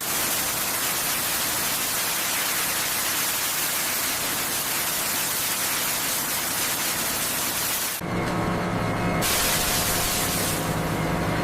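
A steady, loud hiss. At about eight seconds it cuts abruptly to a machinery hum with several steady tones.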